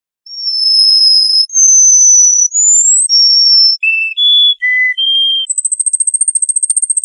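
Songbird song made of clear, long whistled notes, each held steady at a different pitch, with one rising note among them. It ends in a fast, high, even trill.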